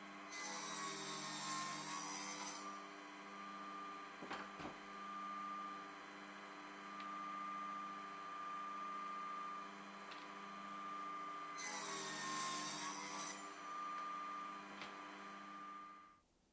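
Circular saw mounted in a saw table running with a steady high whine, cutting through MDF twice: at the start and again about 12 seconds in. Each cut adds a hissing rasp as the motor's pitch dips under the load. There are a few light knocks between the cuts, and the sound stops abruptly near the end.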